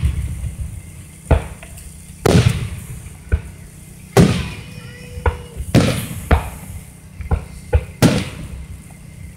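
Aerial fireworks shells bursting: a string of sharp bangs at irregular intervals, roughly one a second, each trailing off in a short rumbling echo, with the loudest near two, four, six and eight seconds in.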